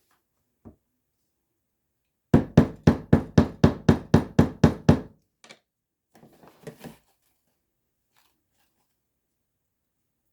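A rapid, even run of about a dozen hard knocks, roughly four a second, as kitchen utensils and the pan are knocked while cake batter goes into the pan, followed by a few fainter clatters.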